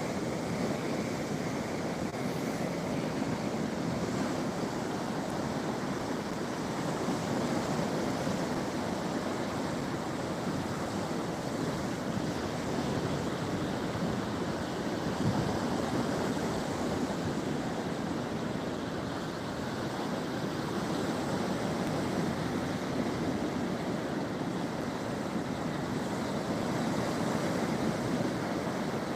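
Black Sea surf: waves washing ashore in a steady, continuous rush.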